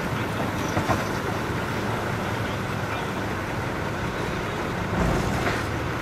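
Heavy-equipment diesel engine running steadily, with a brief louder surge about five seconds in.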